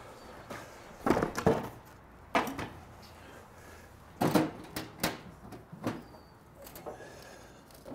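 Wooden boards and tools being handled at a workbench: a handful of irregular knocks and clunks, with a double knock about a second in and another pair around four to five seconds in.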